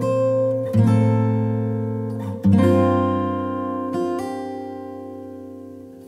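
Background music of acoustic guitar chords strummed and left to ring. New chords come in about a second in and again about two and a half seconds in, and the sound fades away toward the end.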